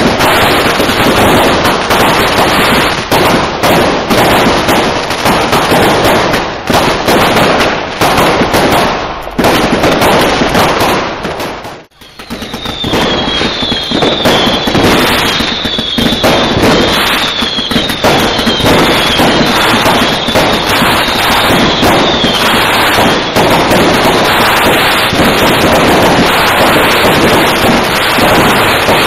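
New Year's Eve fireworks: a loud, dense, continuous crackle of firecrackers and bursting rockets. The noise drops out briefly about twelve seconds in. After that, a run of repeated short high whistles, each falling slightly in pitch, sounds over the bangs for about ten seconds.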